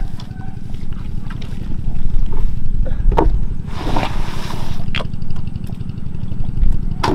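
A small engine running steadily with a fast, even pulse, with a few knocks and a brief rush of noise about four seconds in.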